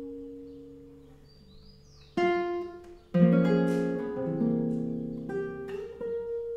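Solo acoustic guitar playing slow, sparse tango-style chords. A held note fades away, then chords are struck about two and three seconds in, and a few more notes sound near the end.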